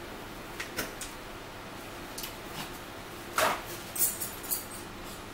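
Handling noises at a table: a few light clicks, a sharp snap about three and a half seconds in, then a quick burst of crisp rustling and tearing as a sheet of paper towel is torn off, alongside a plastic condiment bottle being opened.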